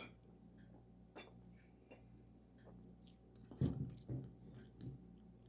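Someone drinking soda from a bottle: faint sips and swallows, with one louder gulp about three and a half seconds in.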